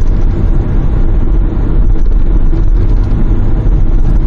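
A steady low rumble of engine and road noise inside the cabin of a Kia Grand Carnival minivan driving at speed.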